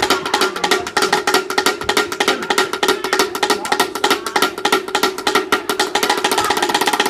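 A Samoan pate, a small wooden slit drum, struck rapidly with two sticks in a fast, rolling rhythm with a hollow, pitched knock. The strokes come closer together near the end.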